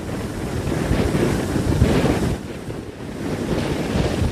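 Rough sea surf breaking and washing onto the shore, with wind buffeting the microphone; the rushing noise swells, eases a little about three seconds in, and swells again.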